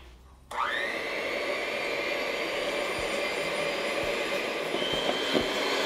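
Handheld electric mixer switched on about half a second in, its motor whining up to speed and then running steadily as the twin beaters whip egg whites in a plastic bowl, with a few light taps of the beaters against the bowl.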